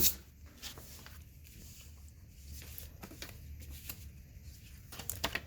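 Soft paper rustling and a few light clicks as instruction manuals are handled, over a low steady hum.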